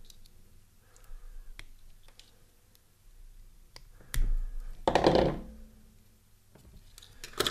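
Hands handling thin wires and small parts of a micro quadcopter: scattered small clicks and taps, with a thump about four seconds in and a louder rustle just after it, then a few quick clicks near the end.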